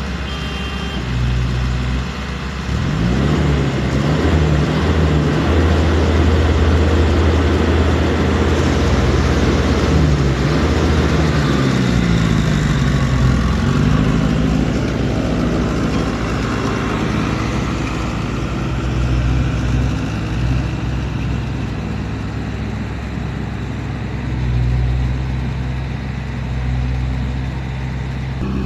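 Diesel engine of a loaded tipper truck running close by, revving up and down several times in the first half and then holding a steadier drone.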